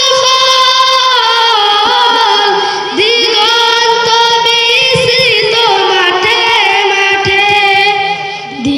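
A boy singing a Bengali Islamic gojol solo into a microphone in a high voice. He holds long notes with wavering ornamented runs and breaks briefly for breath about three seconds in and again near the end.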